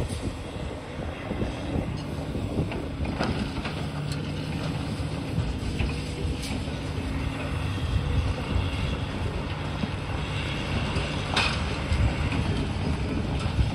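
Komatsu high-reach demolition excavator's diesel engine running steadily under load as its jaws work the building's upper floors, with a few sharp cracks and knocks of breaking concrete and falling debris, the clearest about three, six and eleven seconds in.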